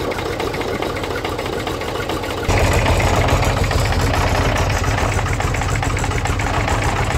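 A David Brown 885 tractor's engine idles steadily. About two and a half seconds in it suddenly becomes louder and deeper.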